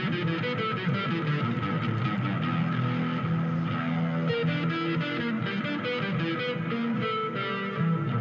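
Electric bass guitar playing a run of quick, separate notes that step up and down in pitch, a sweep-picked arpeggio pattern.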